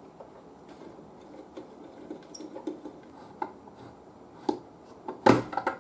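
Quiet clicks and light scraping of small parts being handled on a workbench, then a loud clatter about five seconds in.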